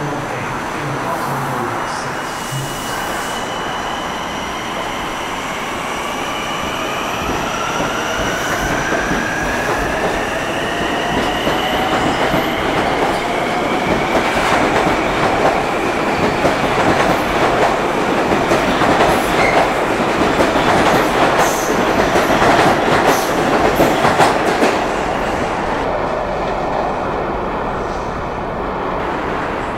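LIRR M9 electric train departing: the whine of its Mitsubishi AC traction motors rises in pitch as it accelerates, then the wheels clatter over the rail joints as the cars pass at speed, fading as the train leaves.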